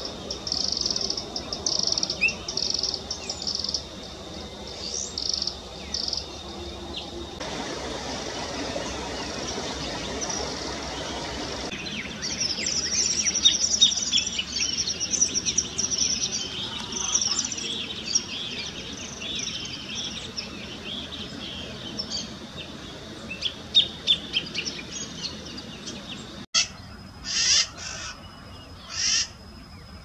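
Common tody-flycatcher (ferreirinho-relógio) repeating short high ticking notes at about four a second. Then a greater thornbird (graveteiro) sings a long, fast run of chattering notes. About 26 seconds in it cuts to red-shouldered macaws (maracanã-pequena) giving a few loud calls.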